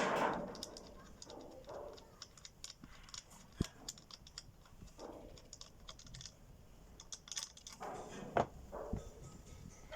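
Irregular light clicks and taps of hand tools and small parts being handled, with a few short scraping or rustling sounds. There is a sharper knock about three and a half seconds in and a louder one near the end.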